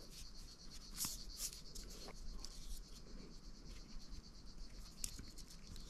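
Faint rustling and a few small clicks of fingers handling fishing line close to the microphone while a loop knot is tied in it.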